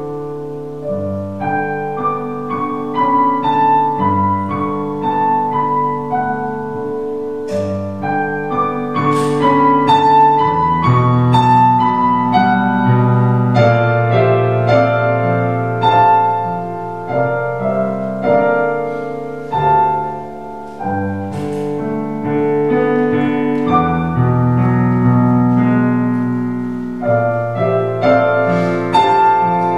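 Solo piano playing a slow piece of held chords under a melody, with notes ringing over one another.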